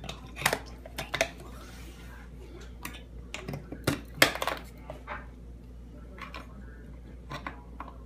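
Sharp clicks and clinks of a metal crank handle and lid being fitted onto a BeanHead ceramic burr hand coffee grinder, a handful of knocks in the first half, then fainter scattered ticks.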